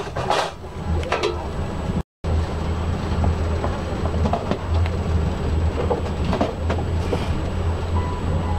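Passenger train running, heard from inside the carriage as a steady low rumble. The sound cuts out for a moment about two seconds in.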